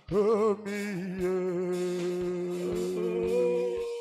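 Church worship music: a man sings long held notes, wavering with vibrato at first, over instrumental backing with a steady low beat; the singing breaks off just before the end.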